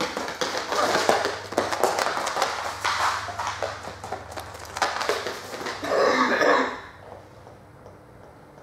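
A large dog moving around its handler on a hard floor: quick clicks and scuffs of claws and feet, with a short breathy voice sound about six seconds in. It all stops about seven seconds in, leaving a low steady hum.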